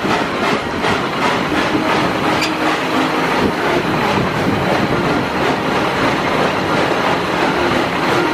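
Amusement-park railroad train running, heard from aboard: a steady rumble of the cars on the track with a rhythmic clicking about three times a second, clearest in the first second.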